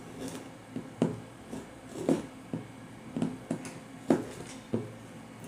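Scissor tip scratching and picking at a paper seal sticker on a cardboard box: a run of short, irregular scrapes and taps.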